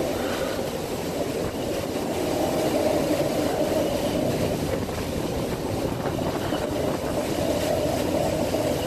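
Steady rumbling din of wind and rough water heard from a ship's open deck in a storm, with gusts buffeting the microphone.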